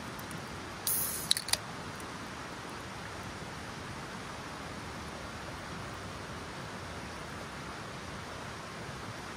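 An aluminium beer can opened about a second in: a short loud hiss of escaping carbonation, then two small sharp clicks of the pull tab. A steady soft background hiss runs underneath.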